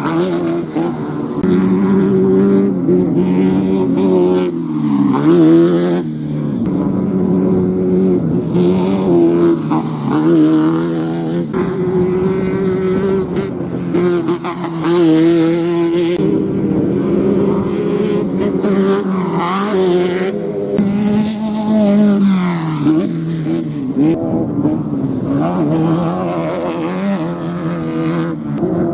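Off-road race vehicle engines running hard, their pitch dipping and climbing again several times; at times more than one engine is heard at once.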